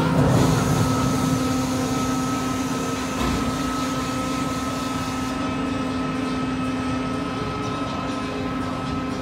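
Sledge Hammer spinning ride running empty on a test cycle, its drive machinery giving a steady hum with a higher whine over a low rumble, the pitch holding level.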